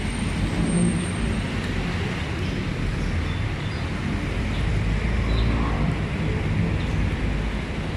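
Steady low outdoor rumble, heaviest in the bass and fluctuating slightly, with no distinct events.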